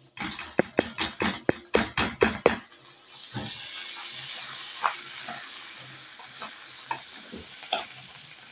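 Dry rice poured into a metal pot of fried vermicelli, with a quick run of sharp clatters for the first two and a half seconds, then a steady sizzle and a few spoon scrapes as the rice is stirred and sautéed in the hot fat.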